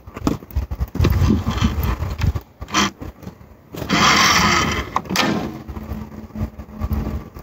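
Wind buffeting the microphone in gusts, with a burst of hiss around four seconds in and a sharp snap about five seconds in as the 40 lb wooden selfbow held in a shooting machine is loosed and its string slaps forward.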